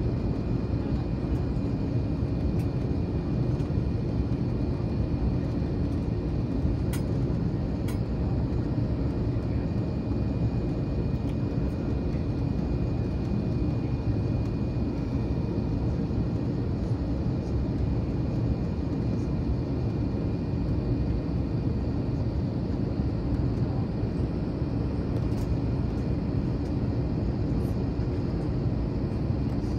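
Steady cabin drone of an Airbus A321 taxiing after landing: jet engines at idle and the cabin air system, heard from inside the cabin, with a faint steady high whine and a couple of faint clicks about seven and eight seconds in.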